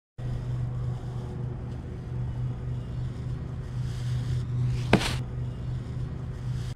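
Steady low outdoor rumble on an action camera's microphone, with one sharp knock about five seconds in.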